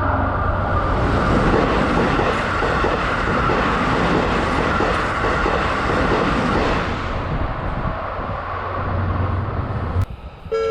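A Seibu Railway electric train passing over a level crossing, its wheels running loudly on the rails for about seven seconds before the noise fades away. Near the end the sound cuts abruptly to a few plucked music notes.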